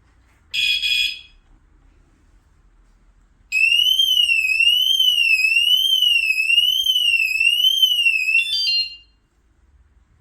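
Battery bicycle/motorcycle anti-theft alarm sounding: a short, high multi-tone chirp, then a loud warbling siren rising and falling a little more than once a second for about five seconds, ending in a few quick stepped beeps.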